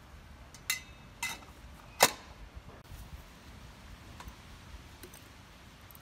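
The samovar's metal lid ring clinking three times, with a brief metallic ring, as it is set down onto the samovar's top; the third clank is the loudest. A few faint taps follow.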